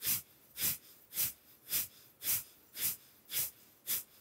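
Breath of fire: short, forceful exhales pumped out through the nose in a steady rhythm, a little under two a second, each a sharp sniff-like puff with quiet in between.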